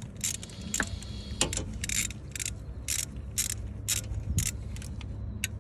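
A ratchet wrench clicking in short bursts, about two to three a second, as it is worked back and forth to undo a tight glow plug, over a low steady hum.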